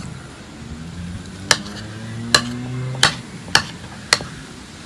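Metal spoon clinking against a ceramic bowl while stirring boiled eggs in soy sauce: five sharp clinks, spaced about half a second to a second apart.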